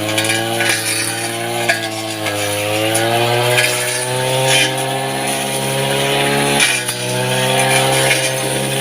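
Small engine of a grass cutter running steadily, its pitch easing up a little about three seconds in and dropping back about seven seconds in.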